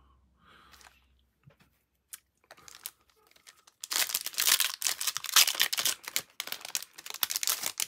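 Foil wrapper of a Magic: The Gathering Double Masters booster pack crinkling and tearing as it is pulled open by hand, a dense run of crackles starting about four seconds in. Before that only a few faint handling ticks.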